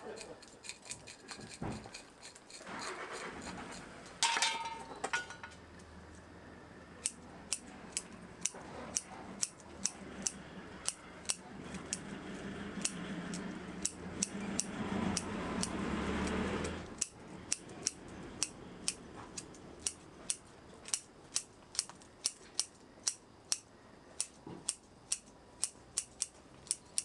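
Bonsai scissors snipping through the roots of a bare-rooted bonsai root ball in a steady run of sharp clicks, about two snips a second. There is a stretch of rustling in the middle.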